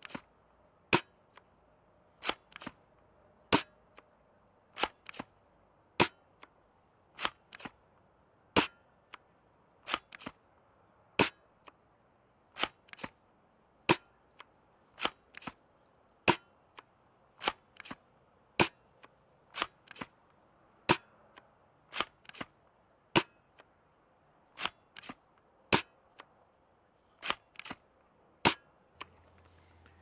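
Worker Seagull spring-powered foam half-dart blaster fired over and over: a string of sharp plastic clacks about one a second, some with a softer click just after.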